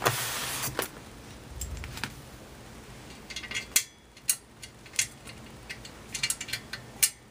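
Light metallic clicks and taps as screws are fitted by hand into the stainless steel base of a commercial ice shaver. There are a few single sharp ticks first, then quicker clusters of clicks from about three seconds in and again near the end.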